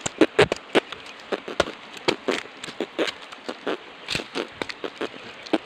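A machete chopping into the husk of a young green coconut: a dozen or so sharp, irregular chops, a few a second.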